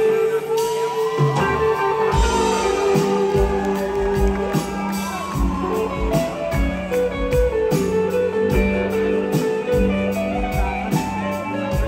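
A live band playing: an electric guitar lead with bending notes over bass and drums.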